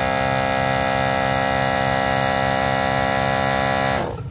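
MaxiTrac 300 LPM 12-volt portable air compressor running steadily under load as it pumps a 2-gallon tank up to about 120 psi. About four seconds in it cuts off and its pitch drops as the motor winds down, leaving a lower engine-like idle.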